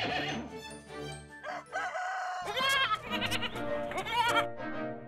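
Background music with animal sound effects laid over it: a rooster crowing about halfway through, then a goat bleating in wavering calls.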